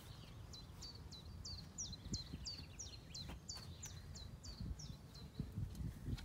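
A small bird singing a steady series of high, downslurred notes, about three a second, that stops about five seconds in. Beneath it is a faint low rumble with a few soft thumps.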